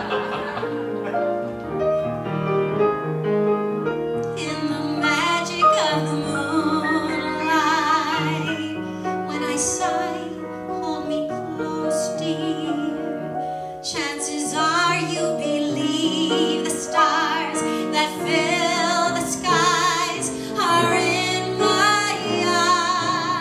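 A woman singing into a microphone with piano accompaniment, her voice held with vibrato. The piano plays alone for the first few seconds before she comes in.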